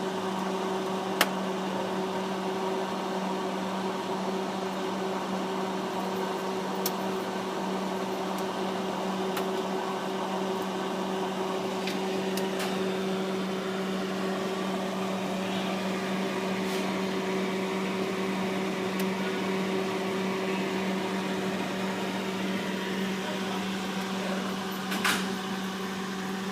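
Refrigerator humming steadily: a low electrical drone with a fainter higher tone above it, and a few short light clicks along the way.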